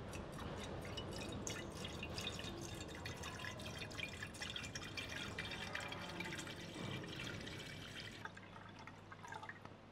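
Water poured from a plastic bottle into a glass baking dish, the stream splashing and bubbling into the water already in it. The splashing thins out about eight seconds in as the pour ends.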